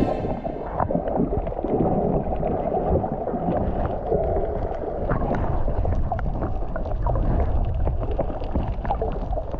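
Muffled water sloshing and bubbling around the camera, a dense low rumble with scattered faint crackles.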